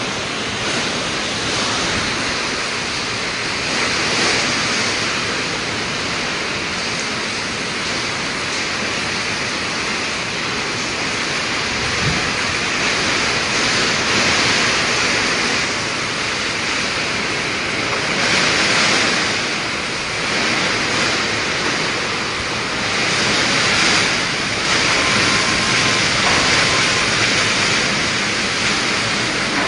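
Typhoon wind and heavy rain: a steady loud rushing that swells several times with the gusts.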